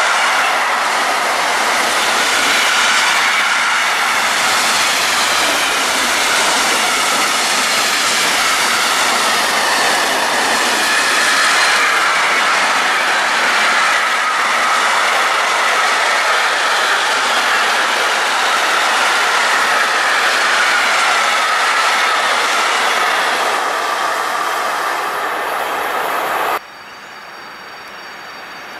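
Freight train rolling past at close range, its wagons clattering over the rail joints with a wavering metallic wheel squeal; the sound cuts off abruptly near the end to something much quieter.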